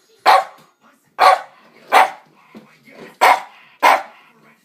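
Dog barking repeatedly: five short, loud barks about a second apart.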